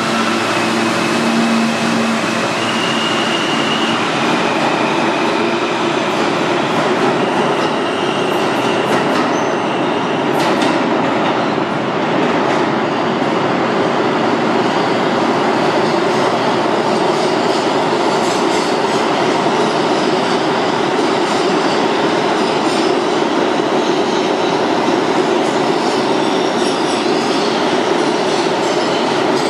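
R46 subway train pulling out of an underground station and running off down the tunnel: a loud, steady rumble of wheels on rail, with a few high whining tones in the first few seconds and scattered sharp clicks from the wheels and track.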